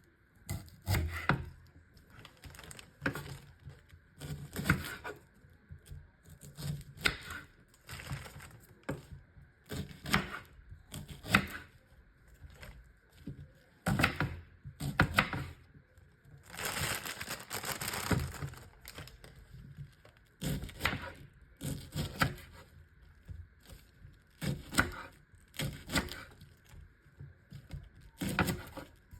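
Kitchen food-prep handling: irregular sharp knocks and crackles, roughly one a second, with a longer rustling stretch about halfway through.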